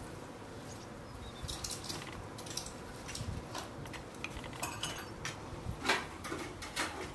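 Light clicks and clinks of small plastic spoons against clay spice pots as spices are scooped and sprinkled over raw quail: a handful of scattered taps, the loudest about six seconds in.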